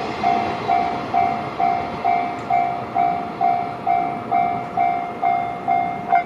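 Japanese railway level-crossing warning bell dinging steadily, about two electronic dings a second, over the fading rumble of a passing freight train. The bell stops suddenly near the end once the train has cleared the crossing.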